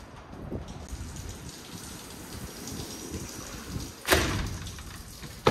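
A sliding glass door shoved along its track with a loud rolling rattle about four seconds in, then a sharp thump as it meets the frame near the end, over a steady hiss.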